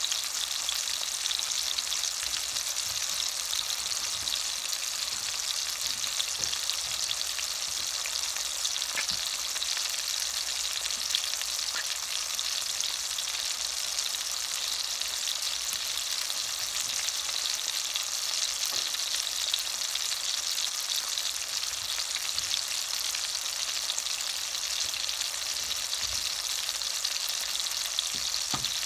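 Sausage slices frying in hot oil, browning: a steady sizzle with fine crackles throughout.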